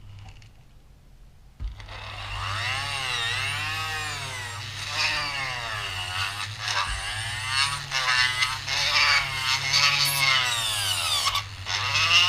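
Vevor 780W flex shaft grinder starting up about a second and a half in and cutting into wood. Its whine rises and falls again and again as the speed is varied with the foot pedal.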